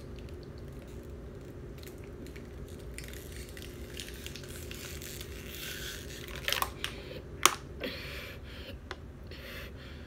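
Thin plastic water bottle crinkling and crackling as the air is sucked out of it and it collapses, with a few sharp cracks about six and a half and seven and a half seconds in.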